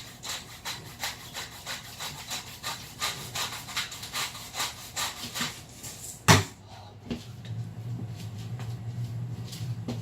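Pepper mill being twisted to grind black pepper over eggs: a fast, even run of grinding strokes, about four or five a second. About six seconds in there is one sharp knock, and after it a low steady hum.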